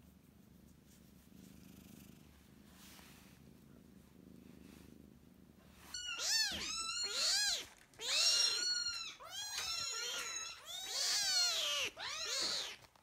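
Cat purring faintly while being stroked, then from about six seconds in a string of loud, high meows, each rising and then falling in pitch.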